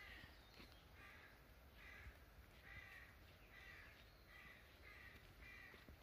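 A bird calling over and over: about eight short, harsh calls, one every three-quarters of a second or so. The calls are faint.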